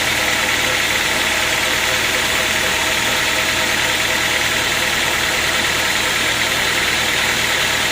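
Sawmill machinery running steadily with an even, engine-like hum and no change in load.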